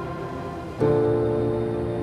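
Background music: soft, slow keyboard or piano chords, with a new chord struck about a second in and held.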